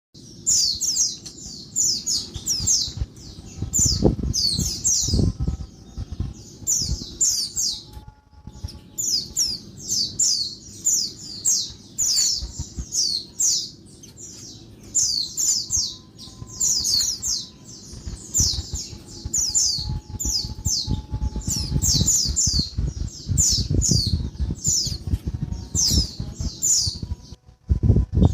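Female white-eye (pleci) calling noisily: rapid runs of high-pitched, down-slurred chattering notes, repeating with short pauses, over a low rumbling background noise.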